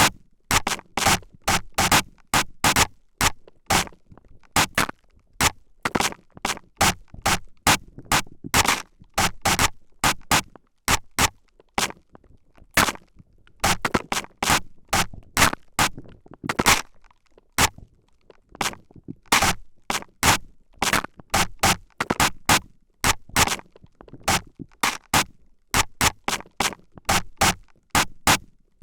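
Spray bottle squirted in rapid short hissing bursts close at the microphone, from left and right, about two or three squirts a second with brief pauses.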